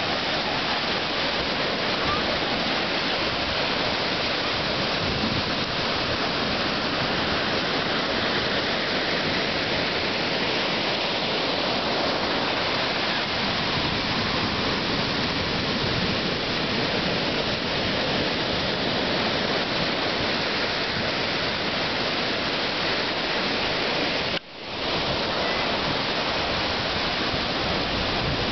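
Ocean surf breaking and washing up the beach: a steady, continuous rush of waves. The sound drops out briefly near the end.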